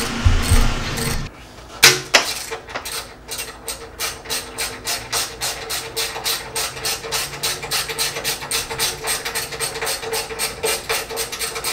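A sharp knock about two seconds in. Then a ratchet wrench clicks steadily, about four clicks a second, as the 10 mm bolt holding the fuel tank is backed out.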